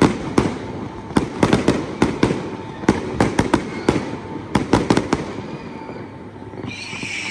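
Aerial fireworks shells bursting: a rapid run of sharp bangs and crackles for about five seconds, then fading out. A steady hiss starts near the end.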